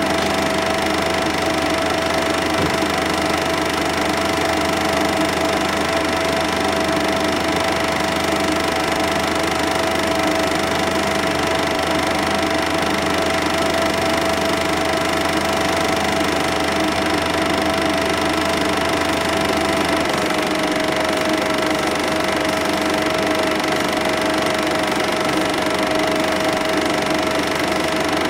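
A cine film projector running: a steady mechanical whirr with a constant tone over it, the tone stepping slightly lower about twenty seconds in.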